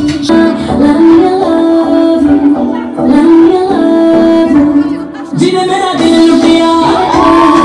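A Bollywood song playing, its singing voice holding long notes over the backing music.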